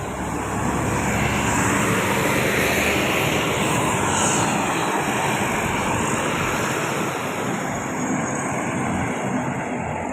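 A bus passing close by on a road: loud engine and tyre rush that swells in over the first second or two, holds, and eases slightly near the end. No telolet horn melody is sounding.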